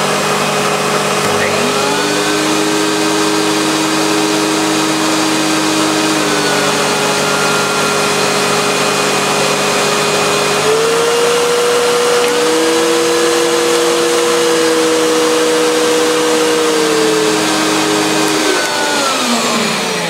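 Two Hoover bagged upright vacuum cleaners, a Turbo Power 1000 and a Purepower 1500W, running together. Their motor hums shift in pitch several times as the Autosense switches power settings, then both motors are switched off and wind down with a falling pitch near the end.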